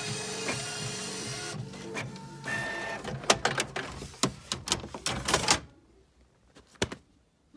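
Canon inkjet all-in-one printer running steadily as it finishes a copy, stopping about a second and a half in. A run of sharp clicks and clacks follows, then the sound drops to near quiet about two seconds before the end, with two last clicks.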